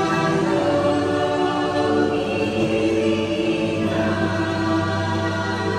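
Ride soundtrack music: a wordless choir singing long held, chant-like notes over a steady low drone.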